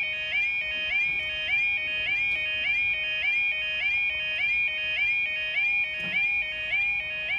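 UK level crossing warning alarm sounding: an electronic two-tone 'yodel', a lower note stepping up to a higher one, repeated just under twice a second.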